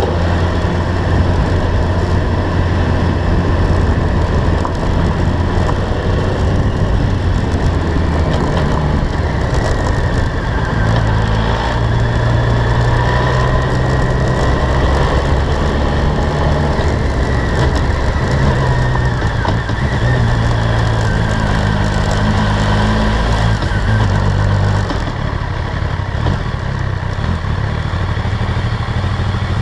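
BMW K1200R motorcycle's inline-four engine running under way, with a steady rush of wind and road noise. The engine note steps up and down in pitch a few times as the speed changes, and it drops quieter as the bike eases off near the end.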